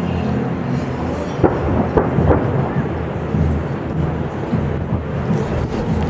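Fireworks exploding: a continuous low rumble of booms, with a few sharper bangs about one and a half to two and a half seconds in.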